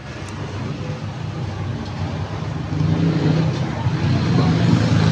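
A motor vehicle engine running with a steady low hum that grows louder a little past halfway.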